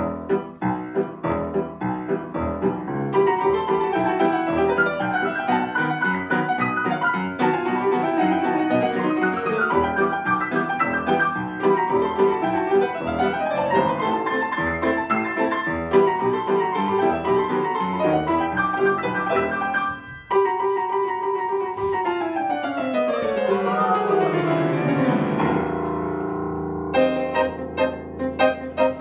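Piano duet: two pianists playing an original piece built on familiar ringtone melodies. The dense, busy playing breaks off briefly about two-thirds of the way through, then a long run of notes falls in pitch before a new passage begins near the end.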